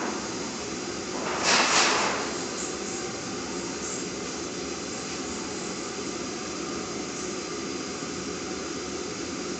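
Two LPG burners of a gas bhatti burning on high pressure with a steady rushing noise. About a second and a half in it swells louder for about half a second, then settles back to the same level.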